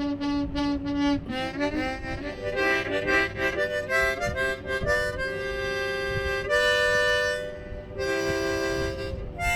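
East Top harmonica playing a tune. A held note pulses about four times a second for the first second, then changing notes and chords follow, with longer held notes in the second half.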